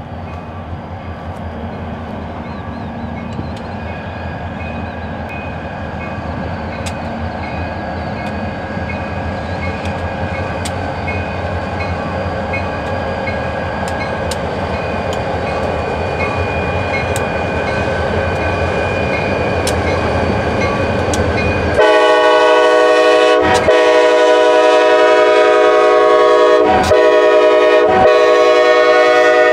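Wheeling & Lake Erie diesel locomotives hauling a stone train, their engines and wheels growing steadily louder as they pass. About three quarters of the way through, the locomotive horn suddenly sounds a loud multi-note chord and holds it, with two or three short breaks.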